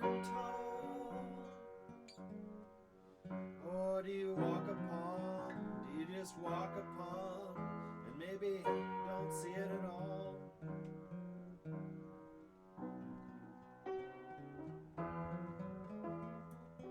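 Music: a song played live on an acoustic guitar, with a singing voice in places.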